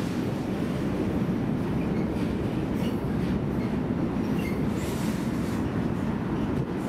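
Container freight train wagons rolling past, a steady heavy rumble and rattle of wheels on rails, with a few faint short high squeaks from the wheels.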